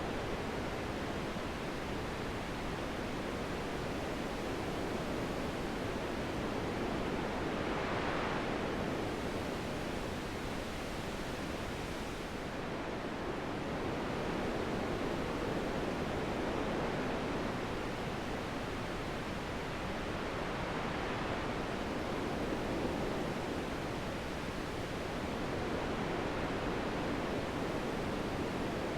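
Wind blowing steadily, a soft rushing noise that swells and eases slowly in gusts every several seconds.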